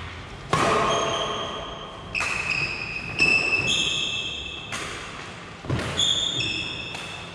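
Badminton rally: rackets striking the shuttlecock with a sharp crack about once a second, echoing in a large hall, with several high-pitched squeaks of sports shoes on the court floor between hits.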